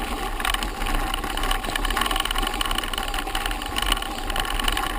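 Mountain bike riding over a bumpy dirt forest track, picked up by a camera on the bike: a steady rumble of knobby tyres on dirt with constant small rattles and jolts from the frame.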